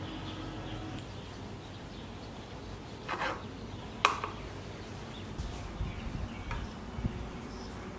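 A knife cutting the crusts off slices of white sandwich bread on a plastic cutting board: a few short, soft cuts, with the sharpest click about four seconds in, over low room hiss.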